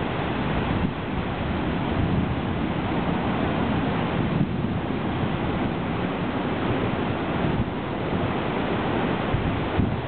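Heavy storm surf breaking over a rock shelf, with foaming water spilling off the ledges: a continuous, even rush of crashing water. Wind buffets the microphone throughout.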